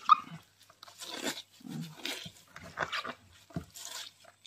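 Wet chopped sabung leaves squeezed and rubbed by hand in a plastic basin: irregular squelches and rustles, kneaded to make the leaves finer before frying.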